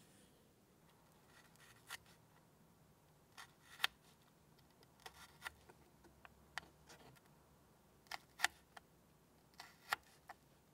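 Miniature kitchen knife cutting carrot on a small cutting board: short, sharp clicks of the blade going through the carrot onto the board, irregularly spaced and often in quick pairs.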